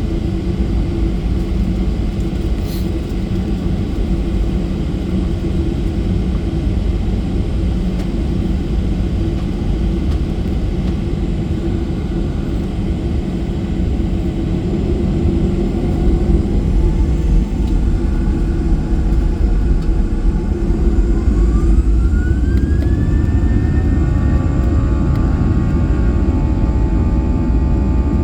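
Boeing 737-800's CFM56-7B jet engines: a steady low rumble, then a whine rises over a few seconds and settles into several steady high tones as the engines spool up toward takeoff thrust.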